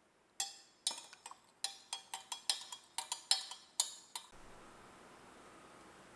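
Long metal spoon stirring liquid in a glass measuring jug, clinking against the glass wall in a quick, uneven run of about four clinks a second, each one ringing briefly. The clinking stops about four seconds in.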